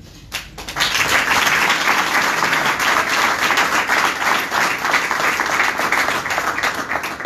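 Audience applauding, a dense run of many people clapping that starts about a second in and dies away near the end.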